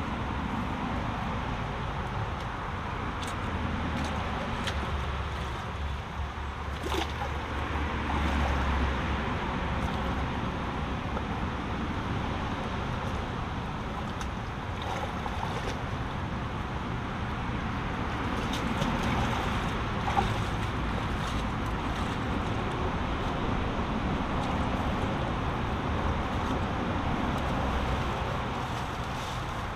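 Storm-swollen brook running fast over stones and tree roots, a steady rushing, with road traffic noise behind it. A low rumble swells between about four and nine seconds in, and there are a few sharp knocks.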